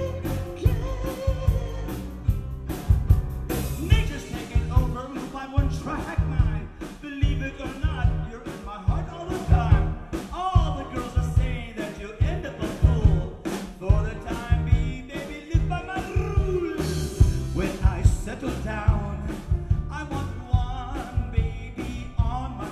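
A vocalist singing a song live into a microphone over a band accompaniment with a steady beat.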